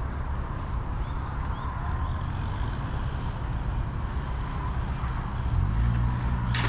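Steady rumble of city traffic, with a vehicle engine growing louder as it passes near the end and a sharp click just before the end.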